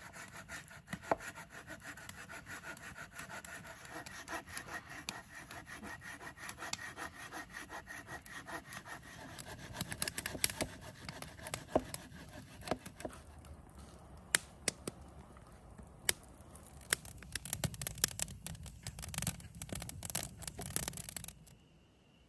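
Firewood being sawn by hand with quick back-and-forth strokes, then several sharp cracks and snaps of wood in the second half. The sound stops abruptly shortly before the end.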